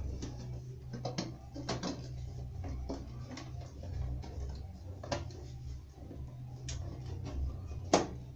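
Hands handling desktop PC hardware: scattered light clicks and knocks, with one sharp, louder click near the end, over a steady low hum.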